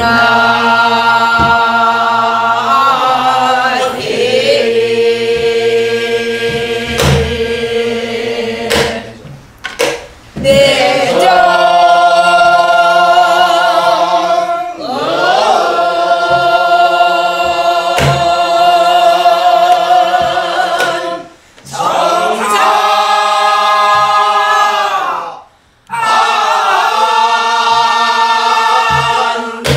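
Korean Namdo folk song sung in long phrases with heavy, wavering vibrato, by a woman's voice and a group of voices singing together. A few sparse strokes on a buk barrel drum accompany the singing.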